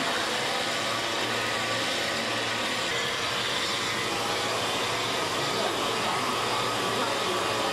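Electric grinding wheel running as a glass snuff-bottle blank is held against it and ground to shape: a steady whir and hiss with a low hum underneath.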